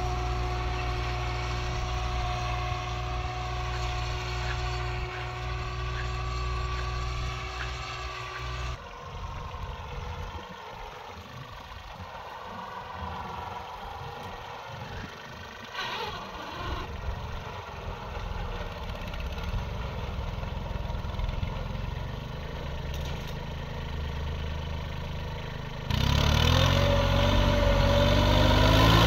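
Kubota 21 hp mini tractor's diesel engine running steadily while it pulls a seed drill through tilled soil. The engine grows much louder about three seconds before the end, and its pitch climbs a little there.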